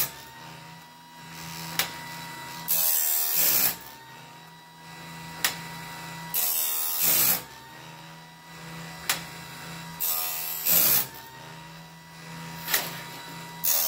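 Homemade automatic bandsaw blade sharpener running: an electric chainsaw-sharpener grinding wheel hums steadily. About every three and a half seconds it grinds one tooth of a steel bandsaw blade in a harsh burst lasting about a second. A sharp click comes midway between each pair of grinds.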